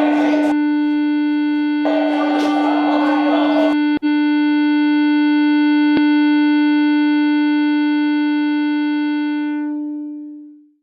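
A single held synthesizer note that fades out near the end, with two swells of noise over it in the first few seconds and two sharp clicks.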